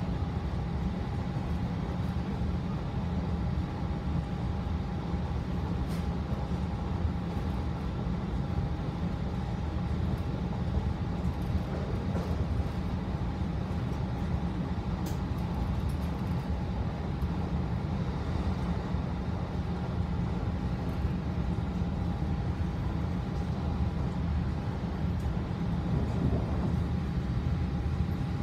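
Steady low rumble of a moving passenger train, heard from inside the carriage, with a faint steady whine under it and two small clicks, about six and fifteen seconds in.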